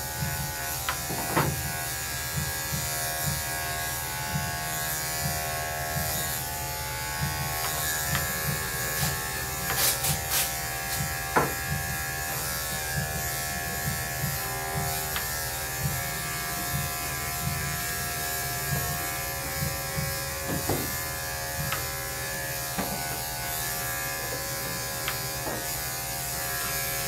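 Electric pet clippers with a guard comb attached, running with a steady buzz as they are worked through a dog's fine coat. There are a few short clicks about ten seconds in.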